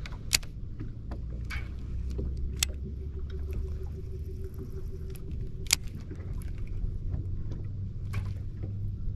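Steady low rumble of a boat sitting on open water, with a few sharp clicks from handling a baitcasting reel and a faint steady hum for a few seconds in the middle.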